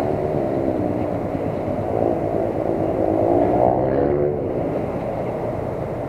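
Motorcycle engine running at a steady idle, its pitch rising and falling slightly with small swells in the middle.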